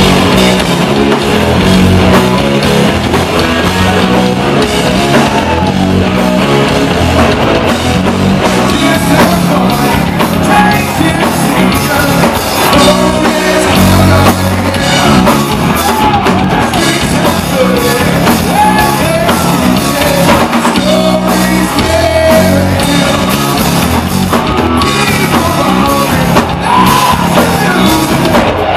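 Southern rock band playing live and loud, with electric guitars, bass guitar and drums, and a man singing lead over them.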